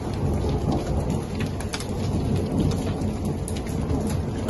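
Snow hail (small icy pellets) falling steadily on pavement, cars and grass: a dense hiss with many small sharp ticks scattered through it, over a low rumble.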